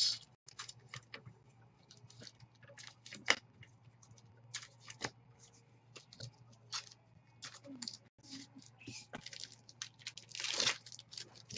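Baseball trading cards being handled and sorted by hand: faint scattered slides, rustles and small clicks, with one longer rustle near the end.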